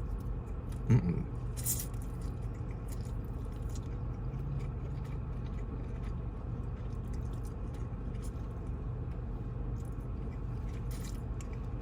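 A person chewing and biting takeout food close to the microphone, with wet mouth clicks and small crunches over a steady low hum. There is one brief louder sound about a second in.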